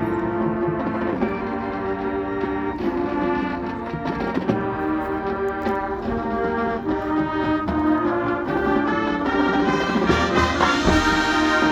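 Marching band playing: brass holding sustained chords with percussion, growing louder near the end.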